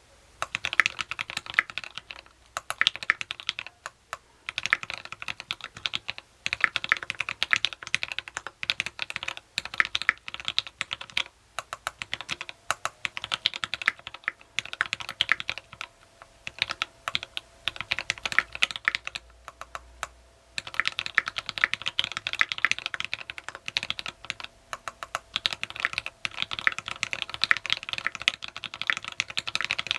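Typing on a custom mechanical keyboard with lubed, filmed Tealios V2 linear switches, a brass plate and PPS keycaps: quick runs of key presses broken by short pauses.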